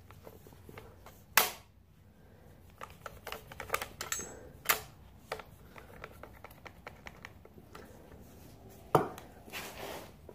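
Metal clinks and knocks from a hand tool being worked and tapped into the metal parts of a bicycle seat being taken apart. Three sharp strikes about a second and a half in, near five seconds and about nine seconds in, with a run of lighter clicks in between.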